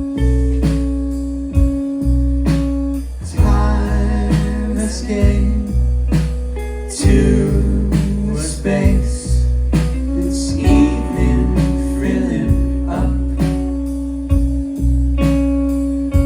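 Live indie band playing: a steady drum beat of about two hits a second over sustained bass, with held guitar notes and a wavering melodic line through the middle.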